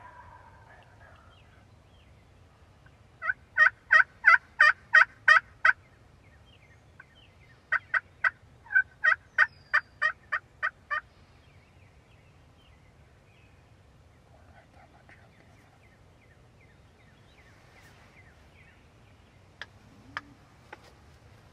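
Wild turkey yelping: a run of about nine loud, evenly spaced yelps, then after a short pause a second run of about a dozen.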